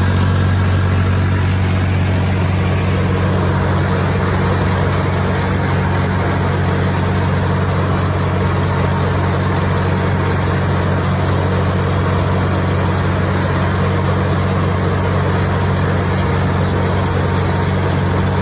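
Ford 4610 tractor's diesel engine running steadily at a constant speed, pulling the mower through the hay.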